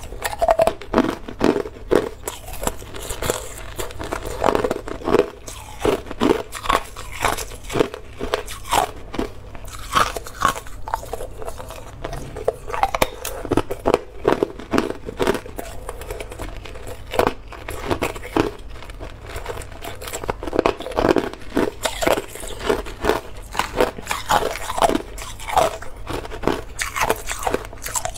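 Hard clear ice being bitten and chewed: a continual run of sharp, irregular cracks and crunches.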